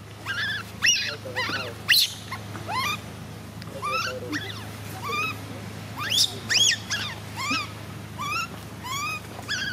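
Baby monkey crying: a run of short, high cries, each rising and then falling in pitch, about two a second.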